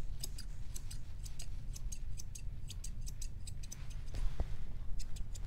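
Grooming shears snipping a Schnauzer puppy's leg and foot hair in quick runs of crisp clicks. The snipping pauses a little past the middle, with a soft knock about four seconds in, and resumes near the end. A steady low hum runs underneath.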